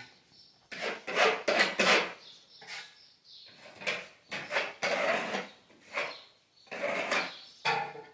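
A hand tool scraping over a plastered wall in repeated short strokes, with brief pauses between them.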